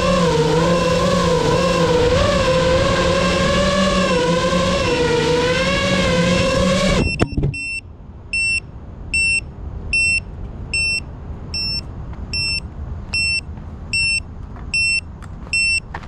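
GEPRC Mark 5 FPV quadcopter's motors and propellers whining, the pitch wavering with the throttle, then cutting off abruptly about seven seconds in with a couple of knocks as it touches down. After that its onboard buzzer beeps steadily, a little more than once a second.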